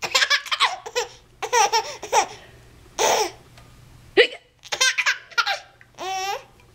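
A baby laughing in repeated high-pitched bursts, set off by hiccups, with sharp short hiccups in between. Near the end comes one long rising squeal.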